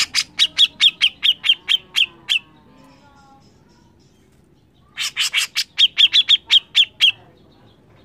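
Cucak jenggot (grey-cheeked bulbul) giving its harsh, rapid 'mbeset' call: a quick run of sharp notes, each dropping in pitch, about five a second. A second run comes after a pause of about two and a half seconds.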